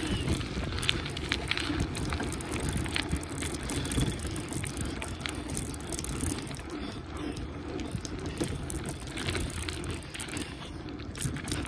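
Bicycle rolling over rough, cracked asphalt: a steady low rumble of tyres and road, with scattered clicks and rattles from the bike.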